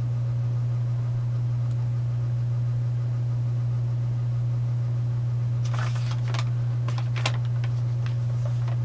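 A steady low hum, with a few light clicks and rustles about six to seven seconds in as small objects are handled.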